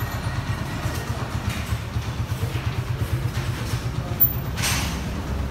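Single-cylinder motorcycle engine running at low revs with a rapid, even low pulsing as the bike rolls down a ramp. About four seconds in comes a sharp knock, then a brief hiss.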